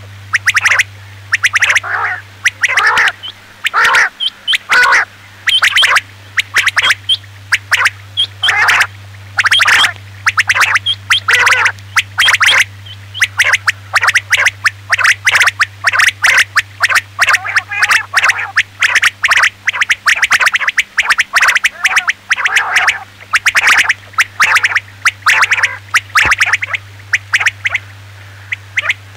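Male common quail (batair) calls, short sharp phrases repeated rapidly and overlapping with no gaps: a lure recording of male calls only, without the female's call. A steady low hum runs underneath.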